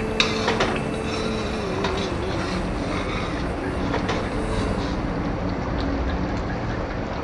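Metal spoon clinking and scraping against a metal pan while a thick chicken curry is stirred, a few sharp knocks in the first second and another about four seconds in, over a steady rushing noise.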